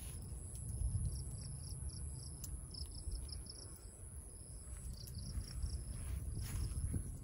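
Insects chirping outdoors in short runs of rapid high pulses over a constant high whine, with a steady low rumble underneath.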